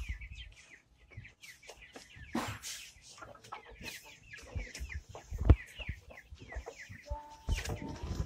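A flock of ayam kampung super chickens calling, with many short falling peeps overlapping. Scattered knocks and thumps are mixed in, the loudest about five and a half seconds in.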